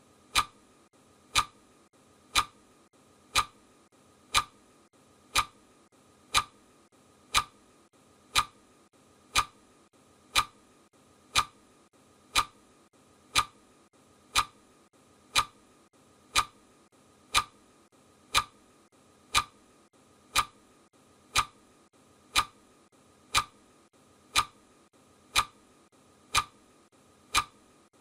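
Countdown timer ticking steadily, one sharp tick every second.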